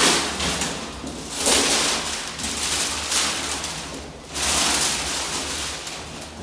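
Packaging of a new standing fan being handled and unpacked: repeated swells of crackling, rustling noise, about four in a few seconds, over a steady low hum.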